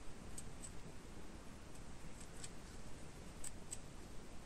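About five faint, short clicks spread unevenly, from a metal crochet hook working white yarn while single-crocheting increase stitches, over a low steady background hiss.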